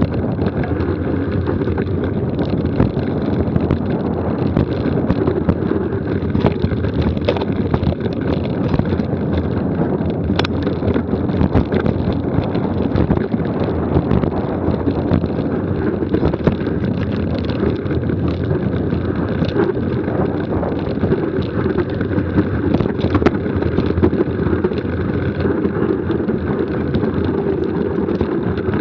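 Wind buffeting the microphone of an action camera riding on a mountain bike at speed down a rocky descent, with knobby tyres crunching over loose stones and many small knocks and rattles as the bike jolts over the rocks.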